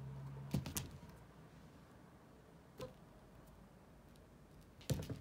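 A low steady hum stops with two sharp clicks about half a second in. After that there is a single click partway through and a quick cluster of clicks near the end, over faint room tone.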